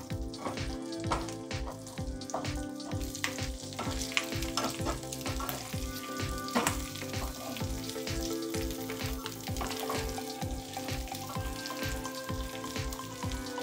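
Ripe red chillies sizzling and crackling in hot oil in a nonstick frying pan, with a spatula stirring them around and scraping the pan. The chillies are being fried until their raw smell and moisture are gone.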